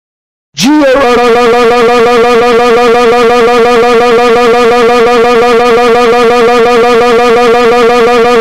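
A cartoon character's rage scream: one very loud, sustained cry with a rapid, even wobble in pitch, starting about half a second in and held without a break.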